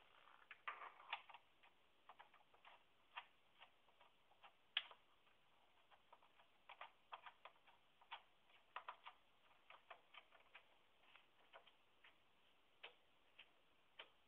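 Faint, irregular clicks and light taps of hands and metal parts being handled at a car battery while its hold-down is put back, with one sharper click about five seconds in.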